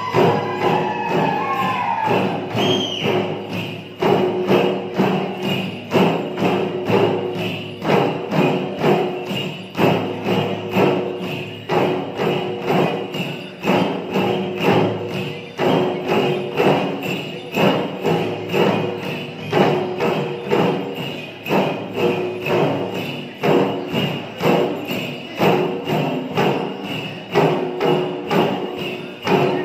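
Kirati dhol drums of a Sakela dance beaten in a steady repeating rhythm, the accent falling roughly once a second, with metallic jingling over the beat. A brief gliding, whistle-like tone sounds in the first couple of seconds.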